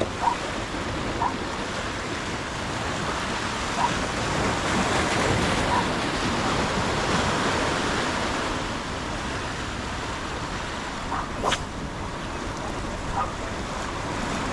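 Surf washing and wind on the microphone, a steady rushing noise that swells in the middle, with a single sharp click near the end.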